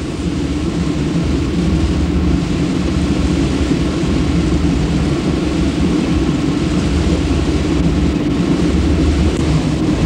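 Steady low rumble of a moving train, heard from inside the passenger carriage.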